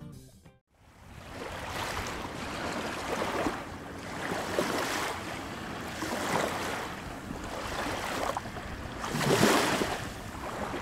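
Small waves washing against the boulders of a rock jetty, fading in just after the start and surging every second or two, with the biggest surge near the end.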